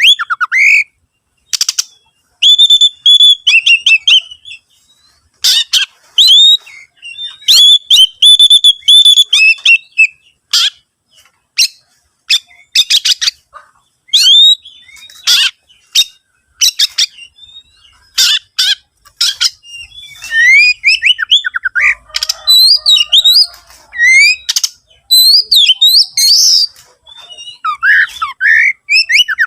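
Oriental magpie-robin singing loudly in varied bursts: whistled phrases, rapid trills and sharp harsh chips broken by short pauses. Its song is filled with mimicked calls of other birds.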